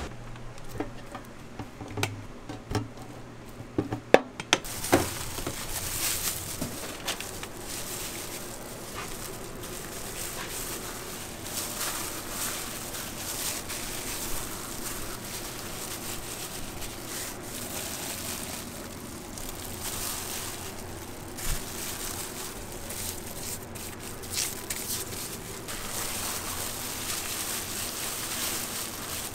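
Hands in thin plastic disposable gloves pressing and spreading sticky cooked rice over a sheet of gim and rolling kimbap on a plastic cutting board: a continuous soft patting and crinkling rustle with small ticks. A few sharp clicks and knocks come in the first few seconds.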